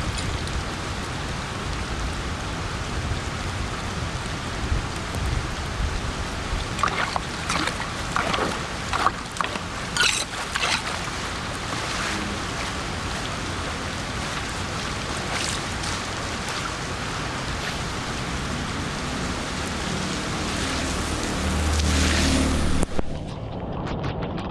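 Steady rush of rain and floodwater running at a street drain, with several sharp knocks and scrapes in the middle and a low rumble that builds near the end before the sound changes abruptly.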